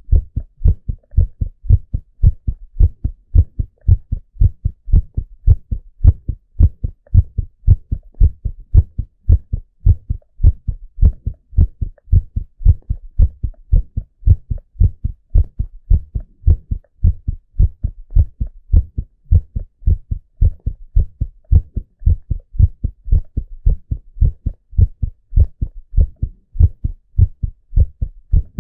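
A man's heartbeat, amplified from the chest, beating in a steady, regular rhythm of low thumps.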